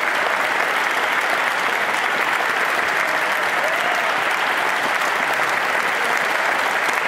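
Concert audience applauding a choir: dense, steady clapping.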